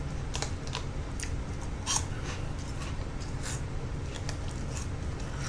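Scattered small crinkles and crunches from a bag of Flamin' Hot Smoky Ghost Pepper Cheetos Puffs being handled and the puffs being eaten, a sharp tick every half second or so over a faint steady hum.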